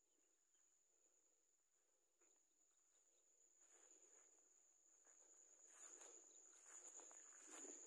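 Faint, steady high-pitched insect trill, such as a cricket, with rustling through rice plants and grass and footsteps that grow louder in the second half.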